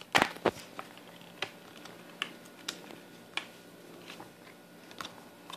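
Sharp clicks and knocks of paintball marker parts being handled and fitted. Two louder ones come within the first half second, followed by scattered lighter ticks.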